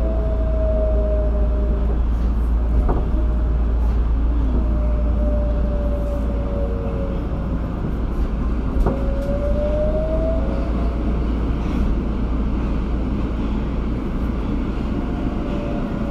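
Tokyo Metro 02-series subway car running between stations, heard from inside: a steady low rumble with a few faint tones that drift down and then rise in pitch, and two sharp clicks about six seconds apart.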